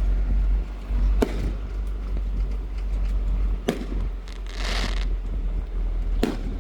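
Fireworks going off: three sharp bangs about two and a half seconds apart, with a short hissing burst between the second and third, over a steady low rumble.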